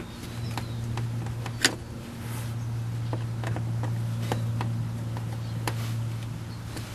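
Light clicks and taps of a screw being fitted by hand with a screwdriver under the dash trim, over a steady low hum that comes in about half a second in, dips briefly near two seconds, then holds until near the end.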